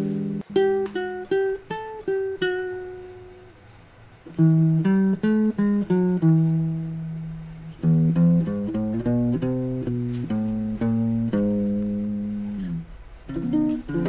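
Background music: an acoustic guitar picking out a melody of single plucked notes, with a short lull about four seconds in before the notes resume.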